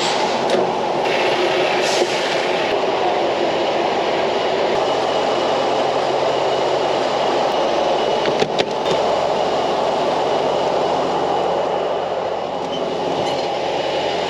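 Steady rumble of a semi truck on the move: diesel engine drone under loud road and wind noise.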